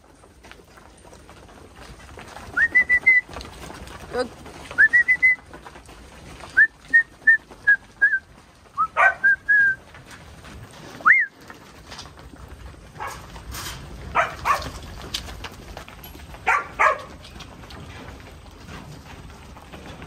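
A series of a dozen or so short whistled notes, most sliding quickly upward and then holding, spread over about nine seconds, above the low shuffle of a mob of sheep moving. A few brief louder sounds follow near the end.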